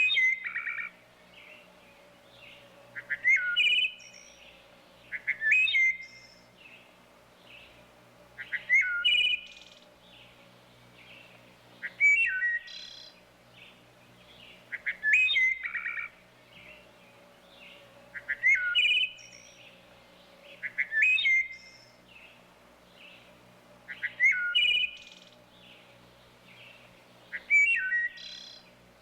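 Wood thrush singing: short fluty song phrases repeated about every three seconds, each with a high note at its end, and soft notes in the pauses between phrases. A faint steady low hum lies underneath.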